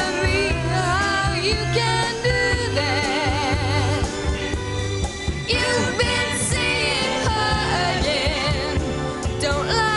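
A 1960s pop record playing: long notes wavering with vibrato, sung or played, over a steady band backing.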